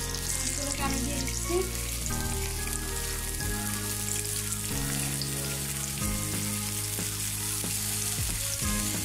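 Pieces of spiny goby fish sizzling as they shallow-fry in hot oil in a pan, a steady sizzling hiss.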